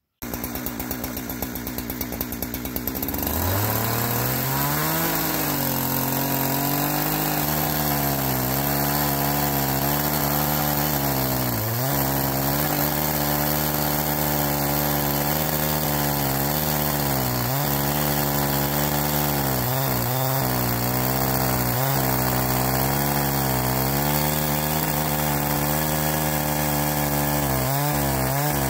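Holzfforma two-stroke chainsaw in a beam-cutter attachment, running slow and rough for about three seconds, then revved up to full throttle and ripping lengthwise along a log. The engine note wavers and dips now and then as the chain loads in the cut.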